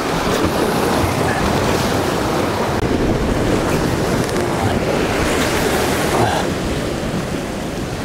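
Ocean surf washing and breaking against the rocks of a jetty, a steady rush of water with wind buffeting the microphone.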